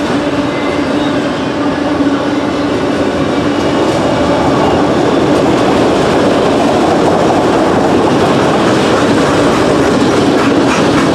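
Freight cars rolling past on steel wheels: a steady rumble and rail hum with clicking as the wheels cross rail joints, a little louder after the first couple of seconds and clicking more near the end.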